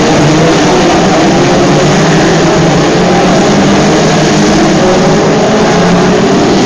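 BriSCA F2 stock cars racing around an oval track, several engines running at once in a loud, steady blend of overlapping engine notes.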